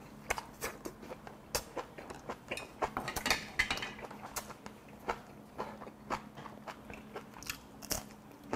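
Close-miked chewing of a mouthful of kimchi-braised pork back rib stew and rice: an irregular run of short mouth clicks and crunches.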